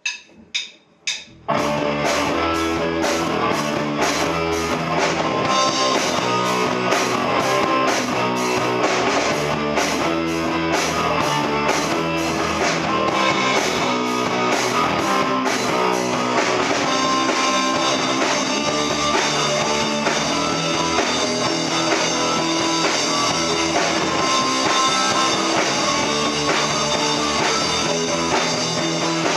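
Four quick count-in hits, then a live rock band with electric guitar and drum kit plays a loud instrumental intro with a steady beat.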